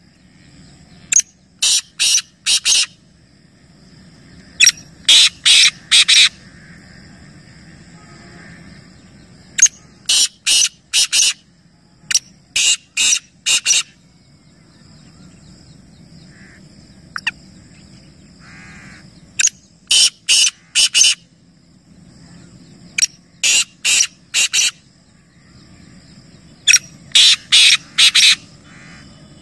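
Black francolin (kala teetar) calling: a harsh call of five or six quick notes, repeated about every three to four seconds over faint background noise.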